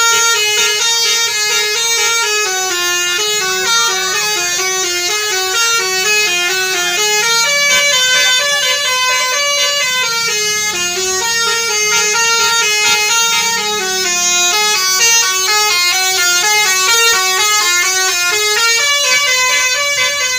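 Basuri musical bus horn playing a continuous, repeating tune of quick stepped notes, each sounded in turn through its horn trumpets.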